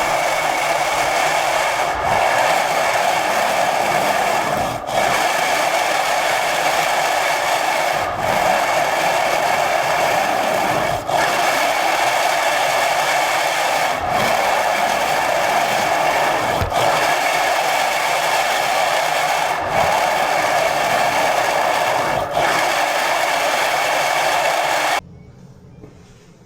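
Floor scraper dragged across a freshly flaked epoxy floor, knocking loose the excess flake: long, even scraping strokes with a short break about every three seconds, stopping abruptly near the end.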